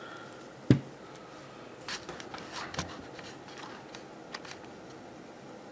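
Handling noise as test leads and the carburettor's electric choke wiring are handled: one sharp click about a second in, then scattered light clicks and rustles.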